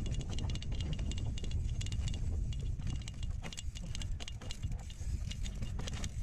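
Mountain bike rattling and clicking as it rides over a bumpy dirt singletrack, metal parts clattering over a steady low rumble.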